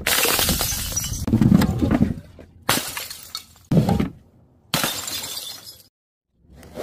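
Bottles and jars smashing on hard paving, with breaking, shattering glass. A long stretch of breaking and crunching is followed by three separate sharp smashes about a second apart.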